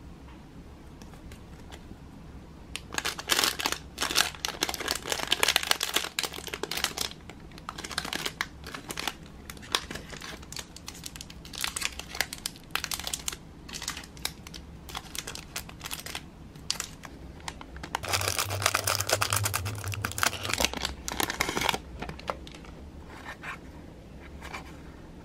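Thin clear plastic packaging crinkling and rustling in the fingers as small miniature pieces are unwrapped. It comes in several bouts, the loudest starting about three seconds in and again about eighteen seconds in.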